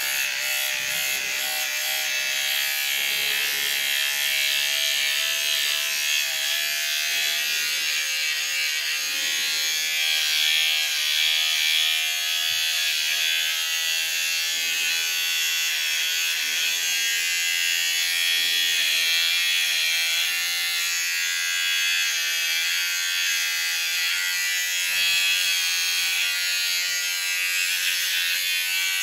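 Electric shaver running with a steady buzz as it is worked over beard stubble on the neck and jaw for touch-ups.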